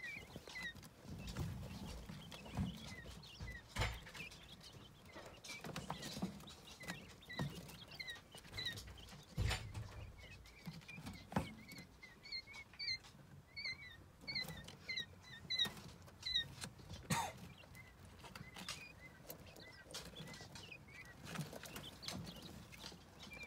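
Eight-day-old quail chicks peeping, short high chirps repeated many times over, with a few sharp knocks among them.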